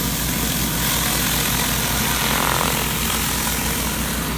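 Pressure washer's gas engine running steadily under a continuous hiss of high-pressure water spraying on concrete.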